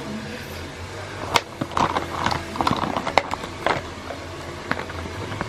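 A quick run of sharp clicks, taps and rustles lasting about two and a half seconds, with a couple of lone clicks after it, over a steady low hum.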